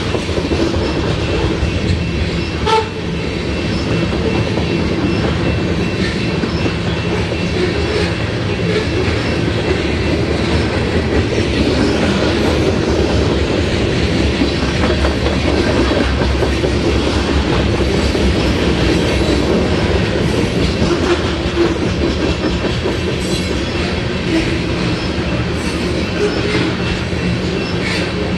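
Loaded covered hopper grain cars of a freight train rolling past, their steel wheels rumbling and clattering steadily over the rails. A single sharp knock about three seconds in.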